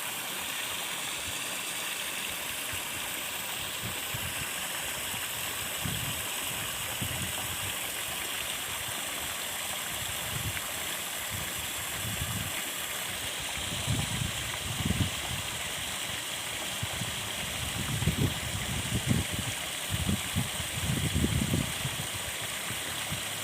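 Steady rushing hiss of flowing water, with irregular low thumps that come more often in the second half.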